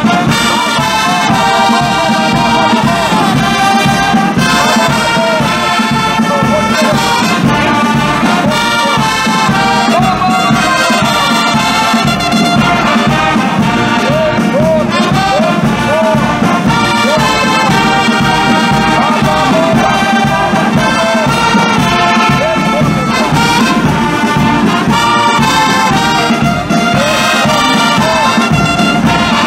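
Brass band playing together: trumpets, trombones and a sousaphone sounding a melody over a steady bass drum beat.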